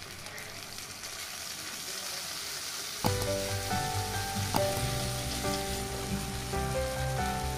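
Onions and capsicum sizzling in hot mustard oil in a wok, with tomato sauce just added. About three seconds in, background music with a steady beat starts and plays over the sizzle, louder than it.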